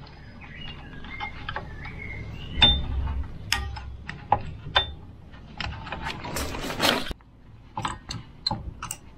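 Metal clinks, taps and scraping from the rear handbrake shoes and their spring being worked into place around the hub. Some knocks ring briefly, and a denser scraping rush comes about six to seven seconds in.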